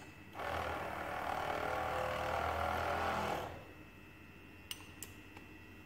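Laboratory vortex mixer running for about three seconds with a steady whirr, mixing a test tube of dilution, then stopping. Two small glassware clicks follow near the end.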